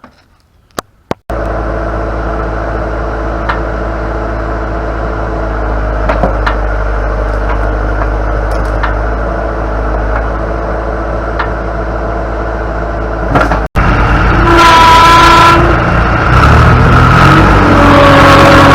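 Backhoe's diesel engine running steadily, then after a sudden break running louder with a high whine, working under load to pull a stuck skid steer up out of a ravine on a chain.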